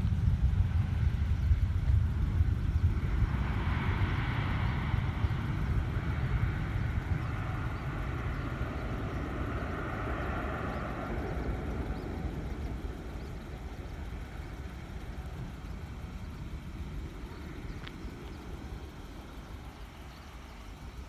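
Jet airliner's engines at takeoff power, a low rumble that fades steadily as the plane climbs away.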